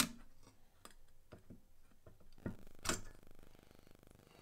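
Printed circuit board being worked loose from its header connectors and lifted off an amplifier's main board: a sharp click right at the start, a few light clicks, then two knocks close together about two and a half seconds in.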